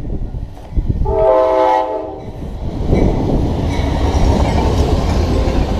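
Amtrak Lake Shore Limited passenger train passing at speed. Its locomotive horn sounds one chord for about a second, then the loud, steady noise of the train going by takes over.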